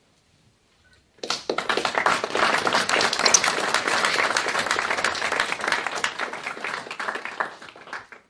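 A small audience applauding, starting suddenly about a second in and dying away near the end.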